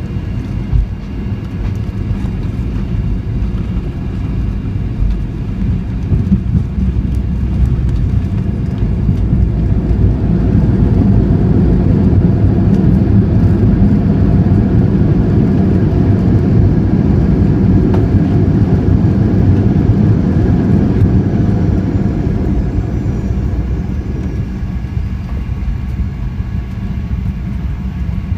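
Boeing 737-900ER's CFM56 engines and rolling gear heard from inside the cabin on the landing rollout just after touchdown: a loud, steady low rumble with a single thump about a second in. The rumble swells through the middle, as the jets spool up in reverse thrust to slow the aircraft, then eases off near the end as it slows.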